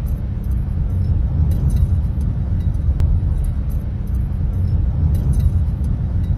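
Steady low rumble of a vehicle driving at speed, with a faint single click about three seconds in.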